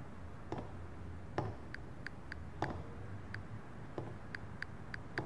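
Smartphone keyboard clicks as a text message is typed: short, even ticks about three a second from a couple of seconds in, after a few soft knocks.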